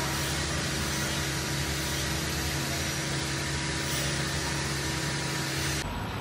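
Steady machine hum under a constant hiss, from running factory equipment; it cuts off abruptly near the end.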